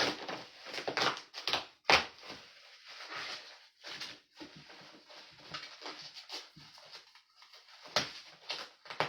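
A heavily taped cardboard box being worked open by hand: irregular rustling, scraping and short knocks of cardboard and packing material, a few a second.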